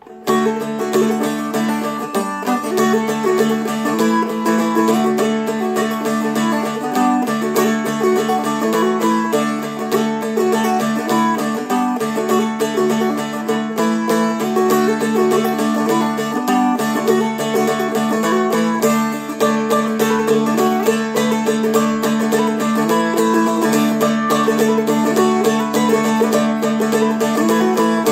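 Seagull Merlin, a small four-string dulcimer-style instrument, flatpicked in a quick Celtic jig melody over steady ringing drone strings.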